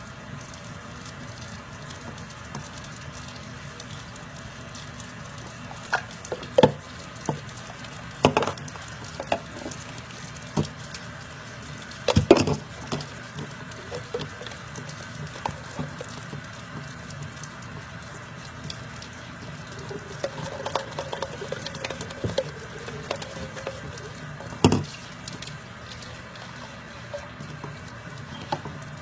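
Washing-up sounds in a stainless-steel sink: scattered knocks and taps of a plastic baby bottle, brush and sponge against the sink and each other, the loudest about 6, 8, 12 and 25 seconds in.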